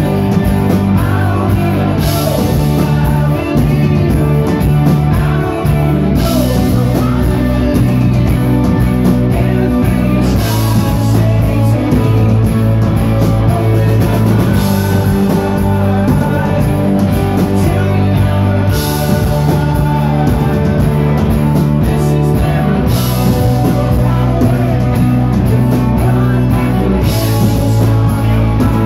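A live rock band playing loud and full, with electric guitars, bass and drums. Cymbal crashes swell every few seconds over sustained bass notes, heard from within the audience.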